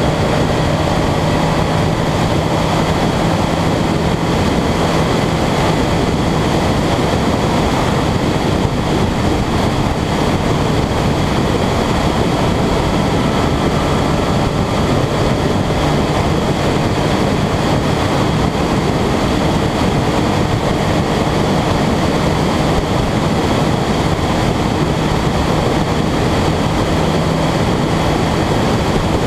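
Steady rush of wind and road noise on the microphone of a camera riding on a moving vehicle at highway speed, with a steady low engine hum underneath.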